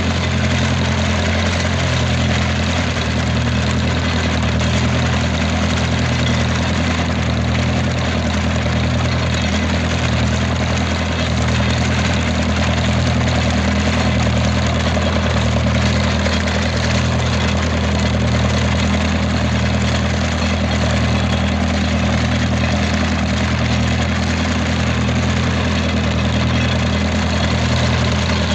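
Ferguson tractor engine running steadily while mowing, its low note pulsing slowly and evenly, over a steady hiss.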